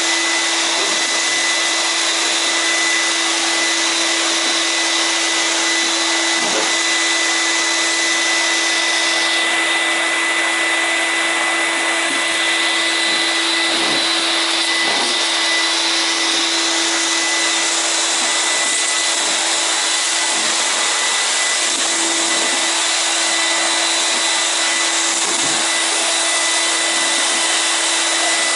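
Vacuum cleaner motor running steadily, an even rushing hiss with a constant hum and whine.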